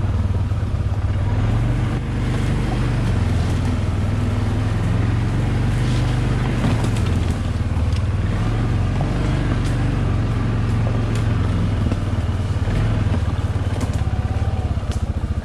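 ATV engine running at low speed while riding along a rough forest trail: a steady low drone, with scattered knocks and rattles from the bumps.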